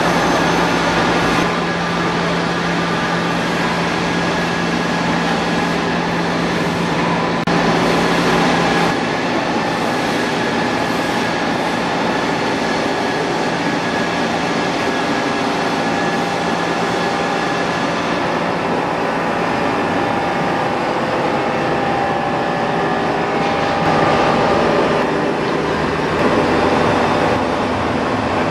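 UNION BFP 130 CNC floor-type horizontal boring machine running, a steady machine drone with several constant whining tones. A low hum drops out about nine seconds in.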